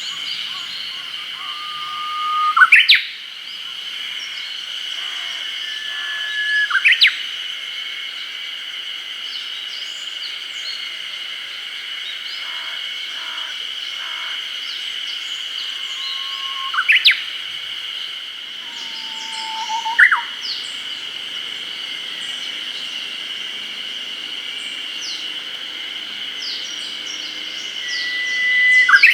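Japanese bush warbler (uguisu) singing its 'hoo-hokekyo' song five times. Each song is a long held whistle followed by a quick rising flourish, one of them lower-pitched than the rest. A steady high-pitched insect drone runs underneath.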